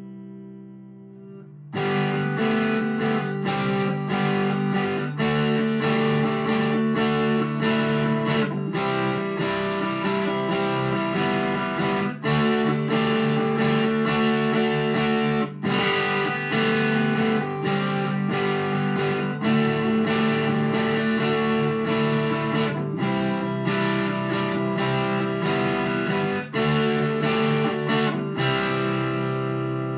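Electric guitar with big single-coil pickups through a Vox AC10 valve amp, strumming chords in a steady rhythm. It starts about two seconds in, the chord changes every few seconds, and the last chord is left to ring out near the end.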